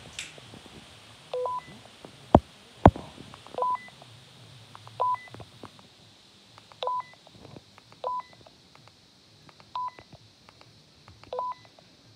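Seven short electronic beeps at one steady pitch, spaced irregularly like presses on a keypad, with two loud sharp clicks about half a second apart between the first and second beeps.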